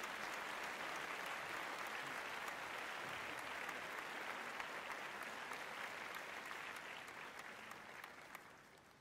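Applause: many hands clapping in a dense patter that holds steady and fades away near the end.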